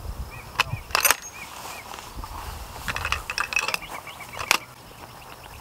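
Metallic clacks and clicks of a Barrett .50 BMG rifle's bolt being worked and a round loaded by hand. Two sharp clacks come about half a second and a second in, a run of lighter clicks follows around three seconds, and one more sharp clack comes near four and a half seconds.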